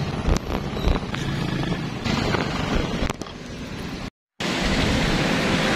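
City street traffic: the noise of cars and motorcycles on the road. It cuts abruptly between shots, with a brief dropout to silence about four seconds in.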